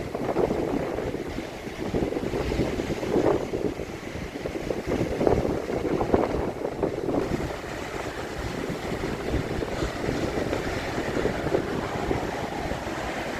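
Storm wind blowing hard across the microphone in rising and falling gusts, with stormy sea surf breaking beneath it.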